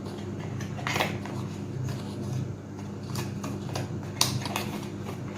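A few light clicks and taps from small objects and packaging being handled, the sharpest about four seconds in, over a steady low hum.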